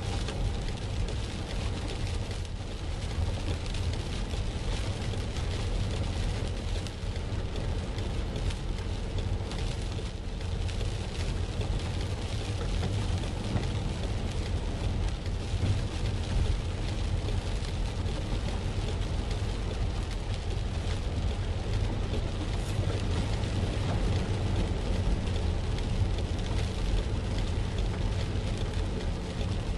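Steady noise inside a car on a flooded, rain-soaked road: a low engine and road hum under an even hiss of rain and water.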